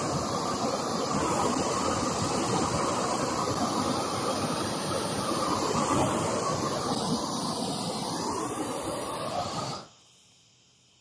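Gas torch flame hissing steadily while charring wood, its tone shifting slightly as it moves, then cutting off suddenly near the end.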